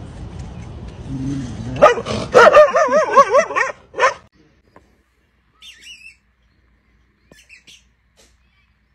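A dog barking and giving a loud wavering howl-like cry, which stops suddenly about four seconds in. A few faint, short, high chirps follow.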